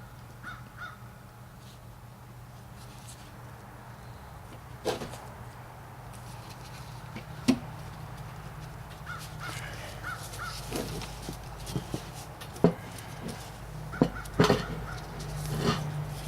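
Scattered sharp knocks and clicks of hard parts being handled and fitted on a turbo pedestal, the loudest near the end. Crows caw in short groups of two or three, over a steady low hum.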